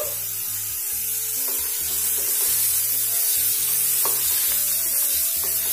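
Chopped vegetables and peanuts sizzling in a hot non-stick pan while a wooden spatula stirs and scrapes through them, with a steady hiss throughout.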